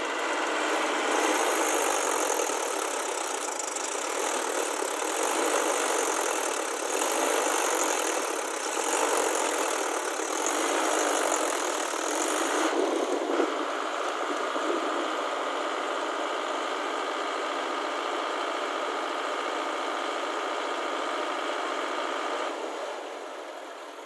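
Tractor engine running. About halfway through, the sound changes to a steadier drone with a high steady whine, which drops away near the end.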